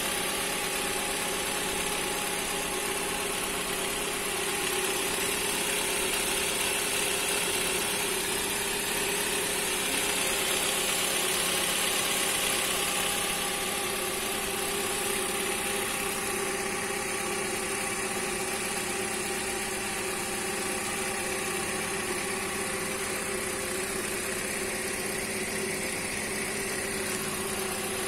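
Freshly overhauled Hyundai Elantra four-cylinder gasoline engine idling steadily and smoothly, in its first running-in after the rebuild.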